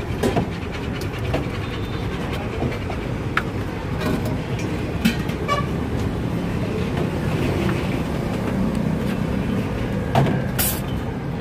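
Steady street noise, traffic-like, with a few sharp metallic clinks as a steel serving spoon scrapes and taps against the big aluminium biryani pot.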